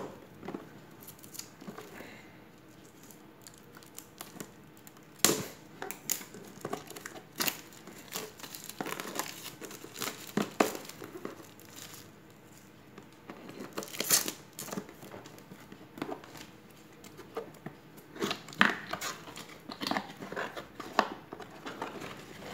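Scissors cutting and hands tearing and crumpling the plastic shrink-wrap off a small cardboard box: irregular crinkling with scattered sharp snaps, the loudest about five seconds in, about fourteen seconds in and near the end.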